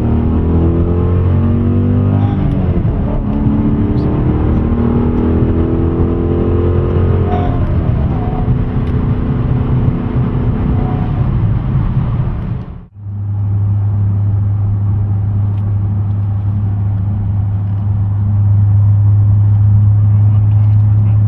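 2010 Dodge Challenger's engine through an MBRP stainless steel exhaust system. For the first dozen seconds the pitch rises and falls as the engine revs and shifts. After a brief cut it settles into a steady low rumble, which grows louder a few seconds before the end.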